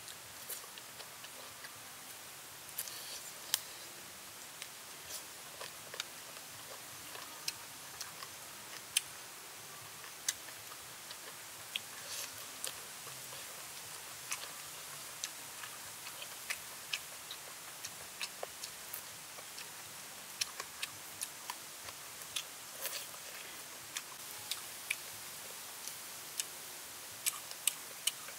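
A person eating pickled chicken feet: irregular sharp clicks and smacks of chewing and sucking, about one every second, over a steady high hiss.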